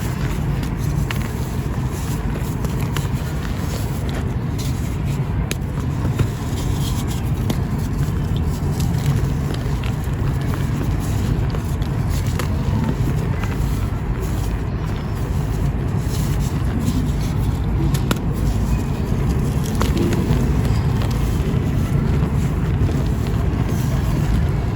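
Dry marble powder chunks crumbling by hand, with scattered faint crackles over a steady low rumble.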